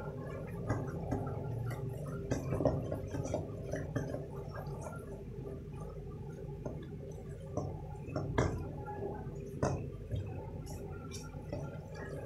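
Besan and sooji roasting in ghee in a metal karahi: the thick paste bubbles and pops steadily as a silicone spatula stirs and scrapes it. A couple of sharper knocks come about eight and ten seconds in. The bubbling shows the mixture is still partly raw, since it is roasted until the bubbles stop and the ghee separates.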